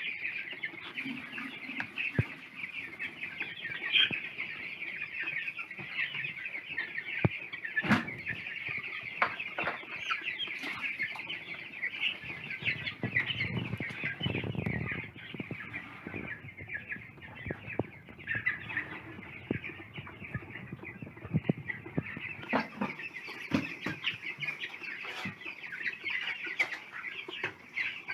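A large flock of chickens clucking and chattering all at once in a steady, dense chorus, with scattered clicks and knocks among them.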